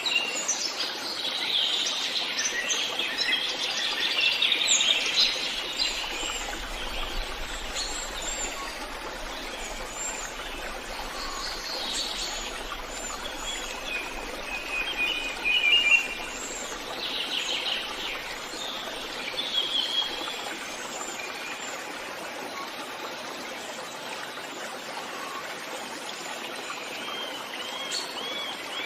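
Forest ambience of several songbirds singing and chirping, with short trills and whistles over a steady soft background hiss. The birdsong is busiest in the first half and thins out later.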